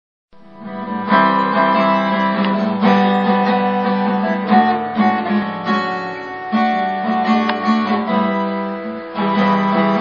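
Plucked guitar music with a steady low note under changing melody notes, fading in over the first second.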